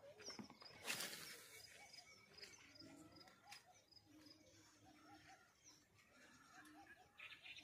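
Faint bird calls: many short repeated notes, with a short burst of noise about a second in.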